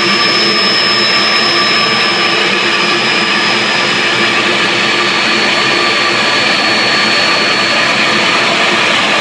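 Homemade Tesla CD turbine blender driven by compressed air and pump water together, running as a loud, steady rush of air. A thin high whine steps slightly lower in pitch about halfway through.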